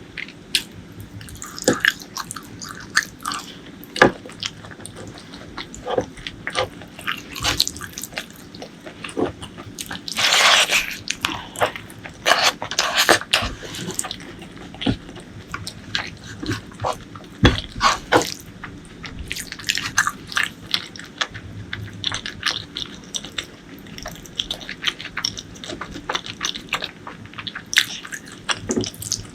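Close-miked mouth sounds of a person eating: wet chewing and lip smacking in many short, irregular clicks. About ten seconds in there is a longer hissing sound that lasts about a second.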